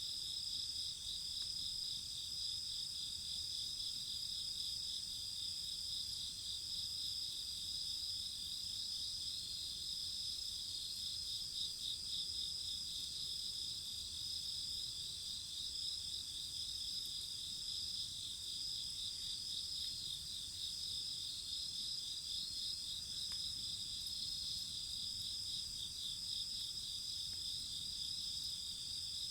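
Crickets and other insects singing in a steady chorus of overlapping high trills, with no break.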